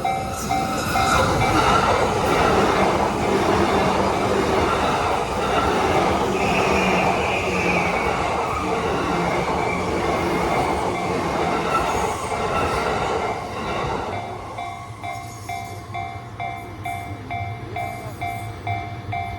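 Japanese level-crossing warning bell dinging steadily. About a second in, a Yamanote Line train runs over the crossing, a loud wheel-and-rail rumble that drowns out the bell. The rumble fades about fourteen seconds in, leaving the bell ringing alone near the end.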